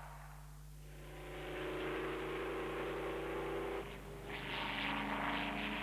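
Racing car engine running at speed in two stretches: the first starts about a second in and cuts off abruptly just before four seconds, and a second, brighter one follows and runs to near the end. A steady low hum lies underneath.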